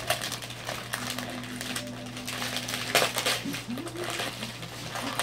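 Paper rustling and crinkling as a present is unwrapped from a gift bag, with a sharper burst of crinkling about three seconds in.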